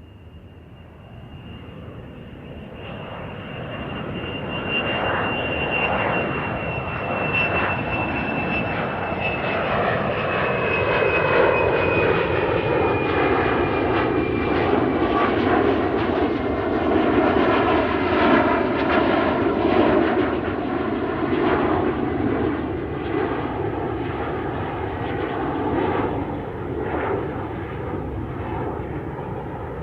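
Aeroplane coming in to land and passing close: its engine noise grows louder over the first few seconds, with a high whine that slowly falls in pitch, then settles into a loud, steady rush that carries on.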